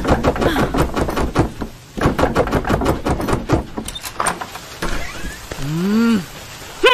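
Rapid, repeated knocking and banging on a bolted wooden door, in quick runs for about the first three and a half seconds, then a short rising-and-falling hummed vocal sound about six seconds in.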